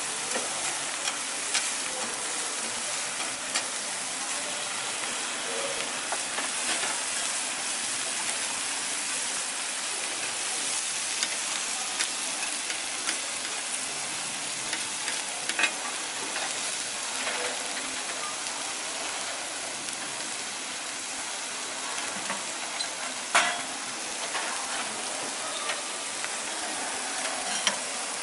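Thin meat cutlets sizzling in oil on a flat steel teppanyaki griddle, a steady hiss, with scattered sharp clicks and clacks of a steel knife on the griddle plate, one louder clack about two-thirds of the way through.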